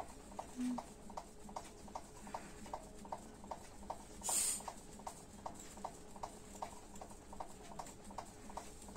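Light, even tapping on a ceramic wall tile, about three small knocks a second, with one short scrape about four seconds in.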